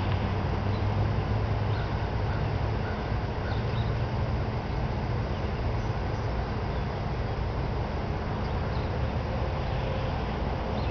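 Steady low engine hum, even and unchanging, with a few faint bird chirps over it.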